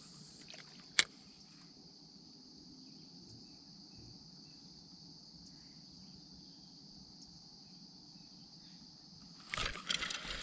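Steady high-pitched chorus of crickets and other insects. A single sharp click about a second in, and a burst of louder noise near the end.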